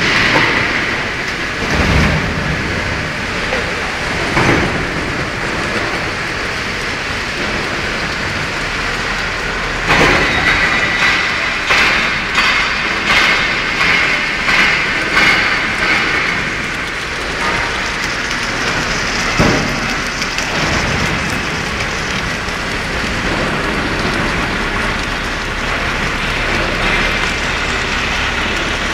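Submerged arc welding equipment running in a workshop: a steady, loud noisy hiss, with a run of sharper knocks about once a second midway.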